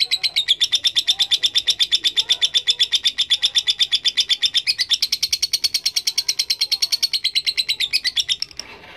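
Lovebird's long rapid chattering song (ngekek): a steady run of sharp, high notes, about ten a second, that breaks off near the end.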